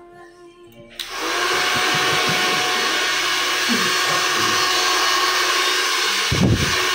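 Handheld hair dryer switched on about a second in, then running steadily with a loud, even blowing noise and a faint steady whine.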